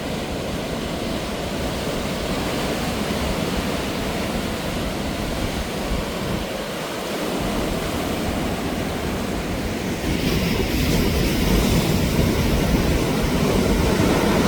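Sea waves washing onto a beach: a steady rush of surf that swells louder and brighter about ten seconds in as a larger wave comes in.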